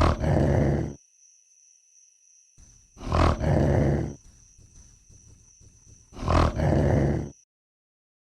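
Carnotaurus dinosaur sound effect: three short, deep roars about three seconds apart, with a faint low rumble between the second and third.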